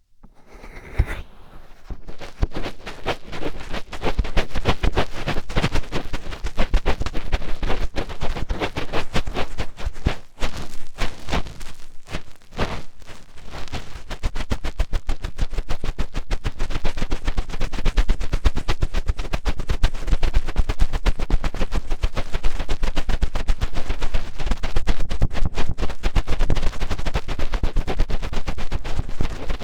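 Fingertips rubbing and digging in an ear right against the microphone: a dense, continuous crackling scratch made of many rapid sharp clicks. It builds up over the first two seconds.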